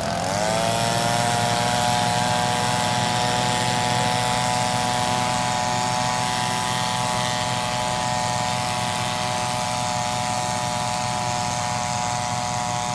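A small engine revs up sharply in the first half-second and then holds a steady high speed, over the lower steady running of a lawn mower engine.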